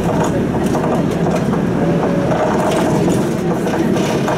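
Inside a city bus while it drives: steady engine and road noise with scattered clicks and rattles from the bus body.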